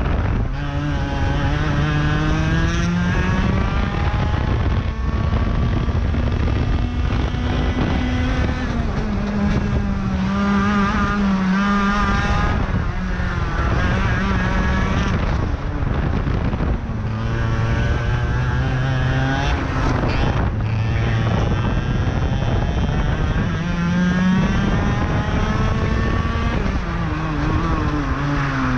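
IAME X30 125cc two-stroke kart engine at racing speed, its pitch climbing in long sweeps as it revs out on the straights and dropping back as it comes off the throttle into the corners, several times over.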